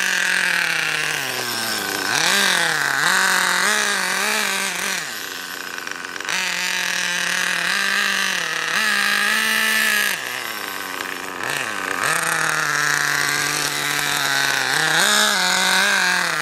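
OFNA Ultra LX Comp 1/8-scale nitro RC buggy's small glow-fuel engine running hard, with a high buzzing note. Its pitch rises and falls again and again as the throttle is worked, with several short dips where it backs off and revs up again.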